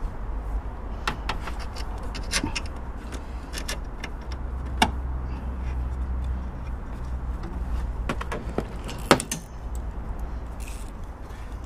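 A handful of sharp clicks and light clinks from hands working the plastic fuel line connectors on top of a diesel fuel filter, spread a second or more apart, the loudest about five and nine seconds in, over a low steady rumble.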